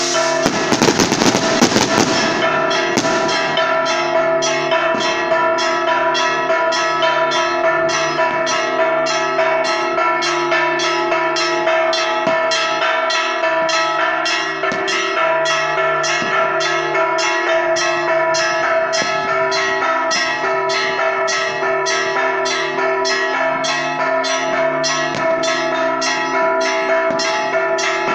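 Church bells ringing a festive repique: rapid, even strokes about twice a second over their long ringing hum. For the first two seconds or so, a firework burst crackles and pops over the bells.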